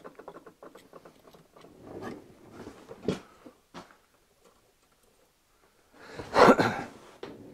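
Scattered small clicks and rustling of hands handling an electrical box and wires on a workbench. About six seconds in there is a louder burst of rustling and knocking.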